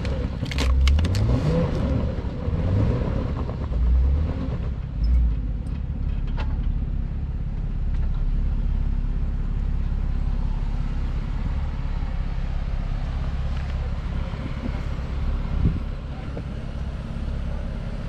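Jeep Wrangler Rubicon engine working at low speed as it crawls its tyres over a tree stump, revving up and down in the first few seconds with a few sharp knocks, then running steadily.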